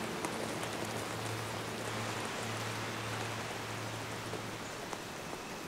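Heavy tropical rain falling steadily on forest foliage and thatch, an even hiss throughout. A low steady drone runs underneath and stops near the end.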